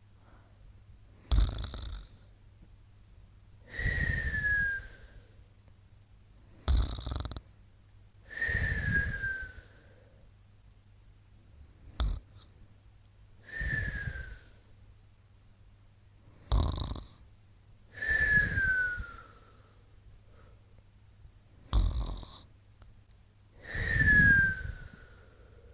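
Slow, regular snoring: five breath cycles about five seconds apart, each a short sharp snort followed by a longer, louder breath with a thin whistle that slides down in pitch.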